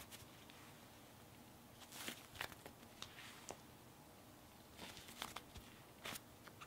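Compound Kings Cotton Cloud fluffy slime squished and stretched by hand, giving faint, scattered little crackles and squelches in small clusters.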